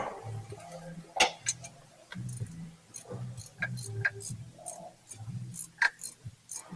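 Irregular sharp metallic clicks and clinks of hand tools and engine parts being handled during timing-chain work. A low hum comes and goes underneath.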